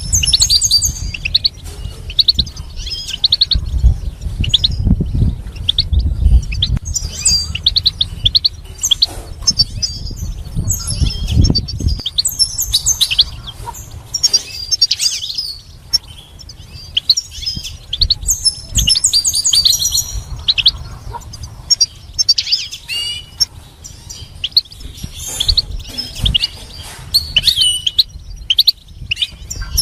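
European goldfinch singing: a long run of rapid, high twittering and chirping notes with brief pauses. A low rumble runs underneath for about the first twelve seconds.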